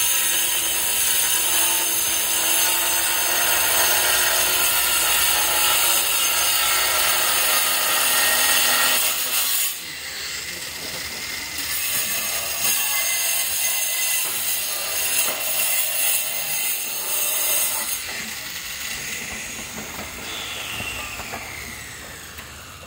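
Handheld angle grinder cutting through red tiles, a dense high-pitched grinding whine. The cut breaks off about ten seconds in, starts again a couple of seconds later, and stops a few seconds before the end, leaving it quieter.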